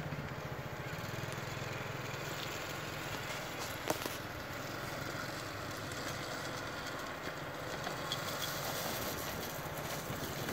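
Small 125cc youth ATV engine running steadily, heard from some distance, with a brief sharp click about four seconds in.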